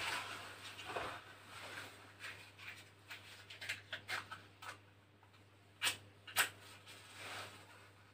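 Faint rustling and light knocking of hands handling kindling at a sauna stove's firebox, with two sharp clicks about six seconds in.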